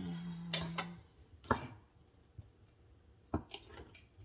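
Chef's knife chopping sliced mushrooms on a wooden cutting board: about half a dozen separate knocks of the blade against the board, spaced irregularly.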